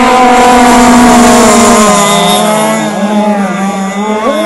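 Engines of radio-controlled racing boats running flat out with a loud, steady, high-pitched whine. About two seconds in, the pitch drops. After that, two or more engine tones rise and fall and overlap.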